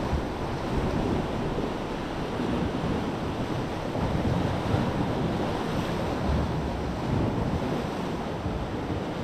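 Sea waves washing against the shore with a steady surf noise, and wind gusting on the microphone.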